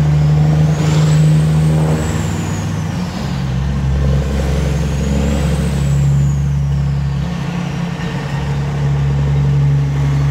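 Straight-piped Peterbilt 379 diesel big rig running alongside, a steady deep exhaust drone whose pitch shifts a few times as the truck moves in slow traffic. A high whistle rises and falls twice over it.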